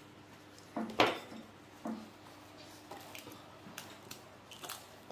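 Eggs knocked against a bowl and a fork clinking in a bowl of flour: a few sharp knocks, the loudest about a second in, then lighter clicks.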